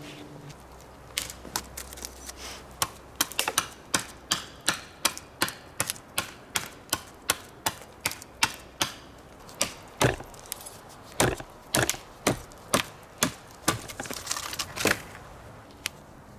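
Large knife blade chopping down a long branch, knocking off twigs and bark in quick, regular strokes of about two a second, with a few louder hits in the middle.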